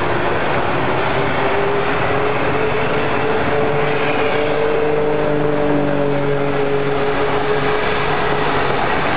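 Thai steam locomotive No. 824 running in with its train, a loud rushing noise throughout. Over it a long, steady tone held for about eight seconds, slowly rising in pitch before fading near the end.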